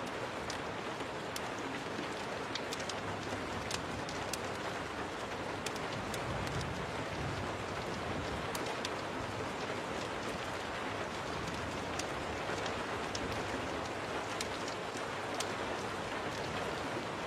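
Steady rain on a window, with a wood fire crackling in frequent sharp snaps.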